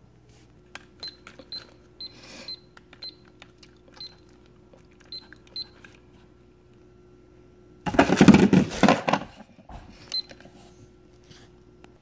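KitchenAid digital kitchen timer beeping at each button press as it is set: a run of about eight short high beeps in the first six seconds and one more after about ten seconds. About eight seconds in, a loud, rough noise lasting about a second and a half.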